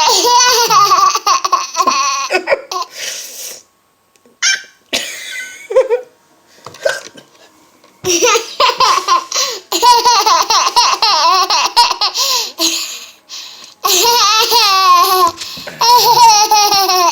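Baby laughing hard in three long bouts of high-pitched, bouncing belly laughter, with pauses between them. She is laughing at her mother's hiccups.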